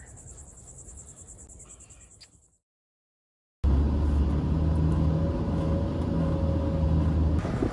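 Crickets chirping, fading out, then after a second of silence a camper van's engine running with a steady low drone.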